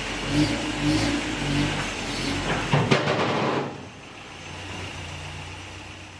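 A motor vehicle engine running and revving, with pitch changing, and a sharp click about three seconds in; it then settles into a quieter, steady run that fades near the end.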